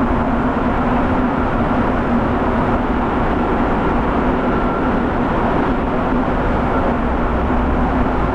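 Mexico City Metro train running, heard from inside the car: a steady rumble with a low hum running through it.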